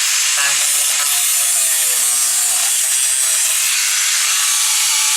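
Angle grinder with its disc grinding steel: a steady, loud, harsh hiss that does not let up.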